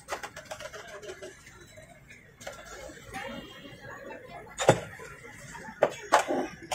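Sharp knocks and clinks of a glass soda bottle and stall utensils handled on a steel counter. The loudest knock comes about two-thirds of the way through, with a few quicker ones near the end.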